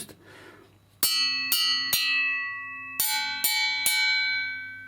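Dun dun bells (flat iron bells) struck with a light, thin steel beater: after about a second, three quick strikes, then three more at a different pitch, each strike ringing on with a bright metallic tone.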